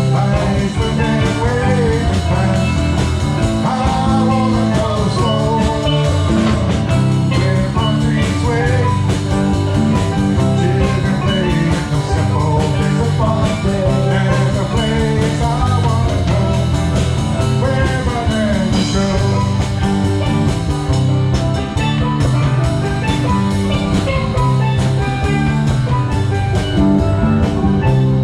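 A live band playing an instrumental passage, with electric guitar, bass guitar and drum kit, and steel drums in the band.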